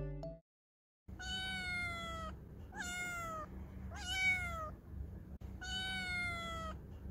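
A cat meowing four times, each call under a second long; the second and third calls rise sharply then fall in pitch, the first and last hold steadier and slide down. A faint low rumble sits under the calls.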